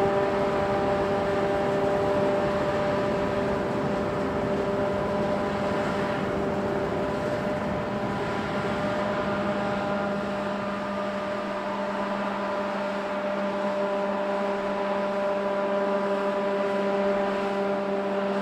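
Steady mechanical whirring from the tug-barge Defiance-Ashtabula: a hum of several steady tones over a noisy background, with a lower tone growing stronger about ten seconds in. Its cause is uncertain; the observer thinks it could be her thruster or her self-unloading system.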